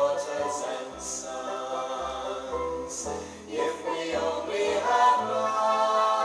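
Choral music: several voices singing together over a bass line.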